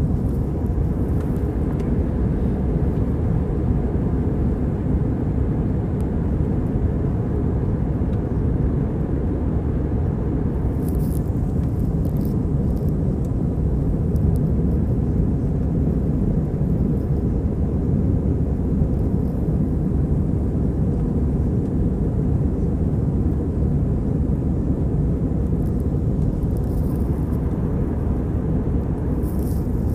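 Steady low roar inside the cabin of a jet airliner in cruise: engine and airflow noise.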